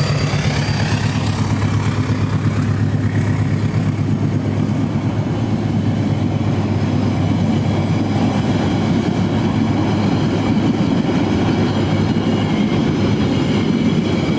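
A train crossing a bridge at close range: a steady loud rumble of wheels on the rails with a low hum underneath.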